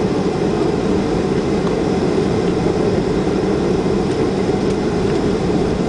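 Cabin noise of a Boeing 737-300 on the ground, heard from a seat over the wing: its CFM56 engines run at a steady pitch and level, not spooling up, under a constant rumble as the airliner rolls along the pavement.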